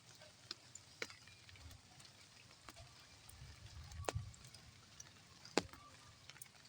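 A few scattered sharp clicks and taps, one every second or so, over a faint steady background, with a brief low rumble about four seconds in.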